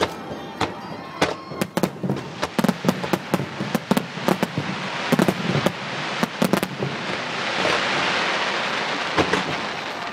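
Fireworks display: rapid bangs and crackles of aerial shells bursting, then a hiss that swells and fades about seven to nine seconds in as rows of ground fountains and comets spray up from the waterfront.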